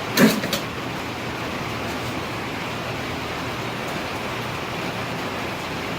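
Steady rushing noise of a blacksmith's forge fire running while a piece heats, with two short clanks about half a second in.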